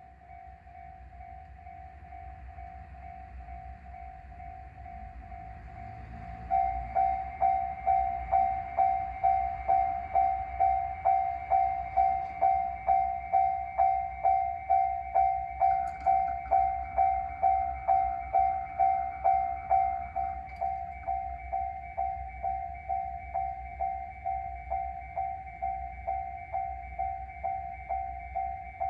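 Railway level-crossing warning bell ringing in an even rhythm of about two strikes a second, becoming much louder about six seconds in. Under it runs the rumble of a JR Shikoku 1200-series diesel railcar approaching and passing the crossing.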